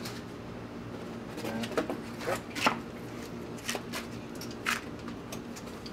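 Hand tools and parts being handled at a truck's stripped-out door: a scatter of short clicks and knocks, about eight in all, over a steady low hum.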